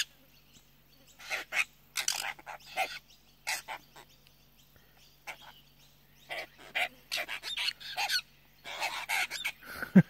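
Apostlebirds calling: short, harsh, grating calls in scattered bursts, with a quieter gap around the middle.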